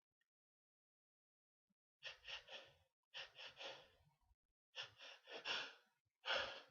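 A person's quick gasping breaths, starting about two seconds in and coming in short clusters of two or three, a sneeze building up. The last cluster is the loudest.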